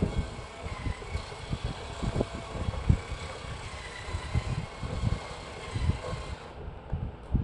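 Two-wheeled remote-control stunt car bumping and knocking on a tiled floor as it is handled and driven, a run of irregular low thumps.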